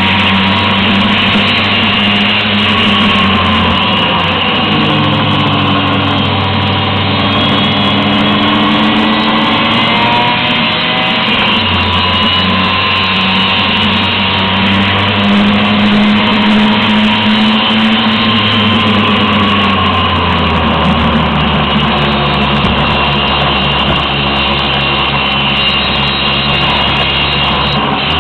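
Two-stroke Vespa scooter engines running loud and steady on a climb, heard from a scooter riding in the group. The engine note shifts up and down in steps a few times, and other scooters' engines waver above it.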